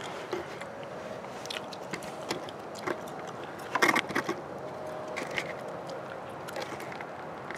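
Scattered light metal clicks and clinks of a socket wrench with extension being handled on the scooter's exhaust mounting bolts, with a cluster of louder clicks about four seconds in, over a faint steady hum.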